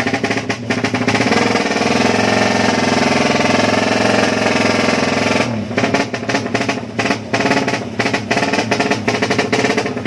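Drag-racing motorcycle engine with an open exhaust, revved hard and held at high revs for a few seconds. About five seconds in the revs drop, and then the throttle is blipped in short, uneven bursts.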